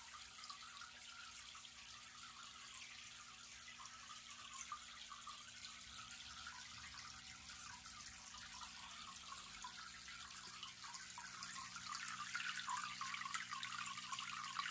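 Pond water trickling and splashing steadily, over a faint steady low hum, growing a little louder near the end.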